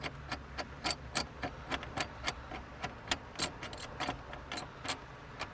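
Steering wheel puller being fitted to a steering column: small metal clicks and clinks, several a second, as its bolts are set and tightened, over a faint steady low hum.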